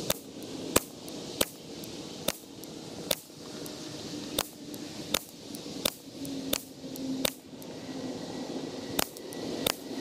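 Ruger 10/22 rimfire rifle with a Shaw stainless fluted barrel firing .22 LR rounds in quick succession: about a dozen sharp shots, one every three-quarters of a second or so, with a short pause before the last two.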